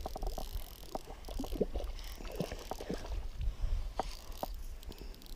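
Handling noise on a GoPro camera: clothing rubbing and bumping against it, with scattered short clicks and knocks over a low rumble.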